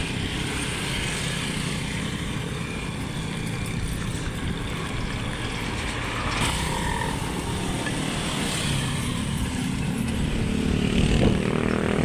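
Steady engine and wind noise of a vehicle driving along a highway, heard from on board, with traffic passing close by. There is a brief sharp sound about six seconds in, and the noise swells a little near the end.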